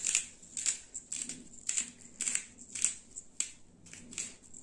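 Hand-twisted pepper grinder grinding black peppercorns, in short repeated grinding strokes about two a second.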